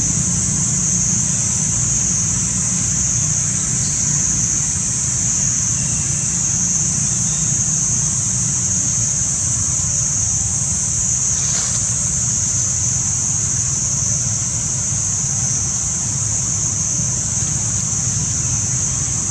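Steady high-pitched buzz of cicadas over a low, steady rumble, with a brief faint sound about eleven seconds in.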